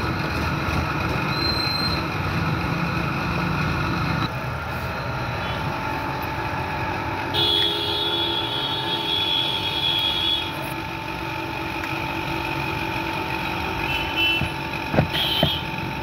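Steady outdoor street and traffic noise. A high steady tone holds for about three seconds near the middle, and two sharp knocks come near the end.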